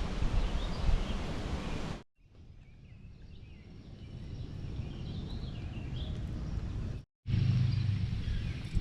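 Wind buffeting the microphone. About two seconds in, a cut leads to a quieter stretch with small birds chirping and twittering. Near the end another cut brings the wind noise back.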